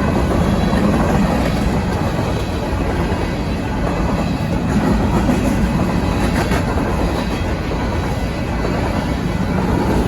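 BNSF grain train rolling past close by: a steady rumble of steel wheels on rail, with some clatter from the cars about six seconds in.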